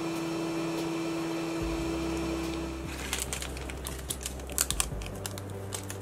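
A steady machine hum for the first few seconds, then from about halfway a run of irregular sharp clicks and crackles as a small electronic component is peeled out of its plastic packaging.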